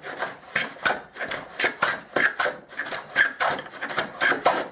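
Handmade wooden 3/4-inch skewed rabbet plane cutting a cross-grain rebate in maple with short, quick strokes, about three a second. Each stroke is a brief scraping hiss as the blade slices a shaving.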